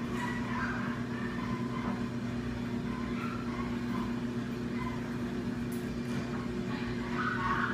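Steady low machine hum, with faint short high tones scattered through it at irregular moments.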